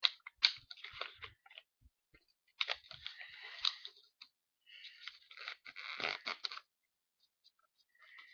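A sheet of paper crinkling as it is twisted tightly into a thin roll, in three crackly bouts with a quiet stretch near the end.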